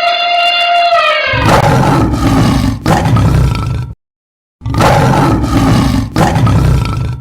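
Animal call sound effects: a trumpet-like call ends about a second in, followed by two long, rough roars with a short silence between them.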